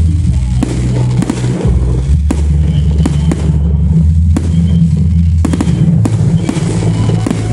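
Aerial firework shells bursting in the sky, with repeated sharp bangs and crackles. Music with a heavy bass plays underneath.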